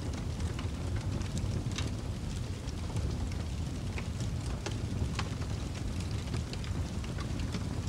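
Rain ambience: a steady low rumble with scattered faint ticks.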